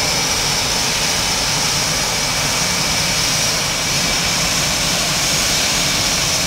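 Boeing F/A-18 Hornet twin jet engines running on the ramp: a steady loud jet rumble with a high whine held over it.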